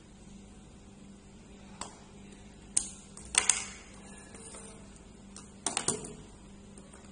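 Plastic gadgets, a power adapter brick and cables being handled and set down on a wooden tabletop: scattered sharp clicks and clatters, the loudest in the middle and in a quick cluster near the end, over a faint steady hum.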